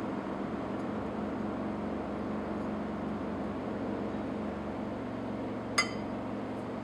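A steady, fan-like hum in the background, and one sharp glass clink near the end as the glass graduated cylinder comes off the beaker's rim after pouring.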